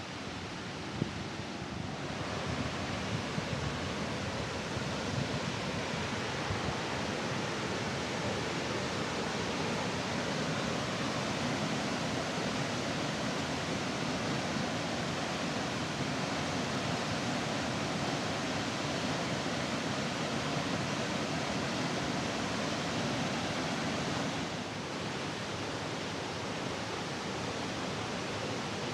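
Steady rush of a large, high-volume waterfall, a little louder from about two seconds in and easing slightly near the end.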